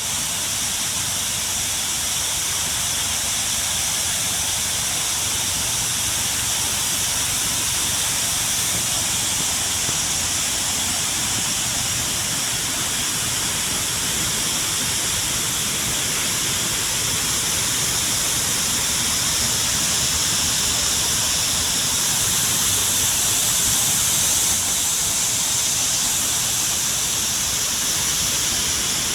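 Waterfall rushing: a steady, dense hiss of falling water with no breaks.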